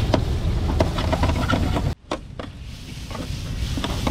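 Metal spatula scraping and clicking against a steel griddle tray while stir-frying noodles, over a steady low rumble. About two seconds in the sound cuts out abruptly, then returns quieter, with a few more spatula clicks near the end.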